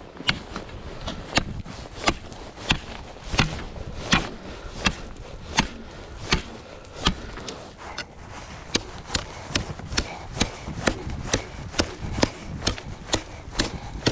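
Ice spud's chisel tip striking thin lake ice over and over, a sharp tap about every 0.7 s that quickens to about two a second after the midpoint. The ice is being tested for safety ahead of each step on early-season ice only 2 to 3 inches thick.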